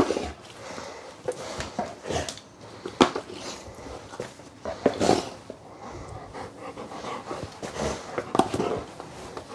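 Dog panting while moving about, with a few sharp knocks as toys are dropped into a plastic bowl: the loudest near the start, and again about three and five seconds in.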